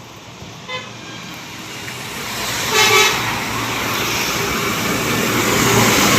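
Two short vehicle horn toots, a faint one less than a second in and a louder one about three seconds in, over road-traffic noise that grows louder and stays up.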